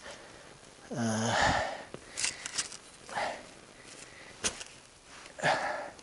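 A person digging, breathing hard with a short effortful grunt about a second in, further heavy breaths, and a few sharp knocks and scrapes in between.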